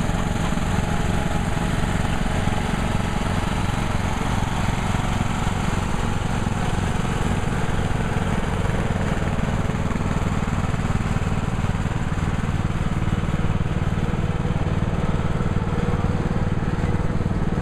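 Small engines of riding lawn tractors running steadily at low speed, an even hum that doesn't change.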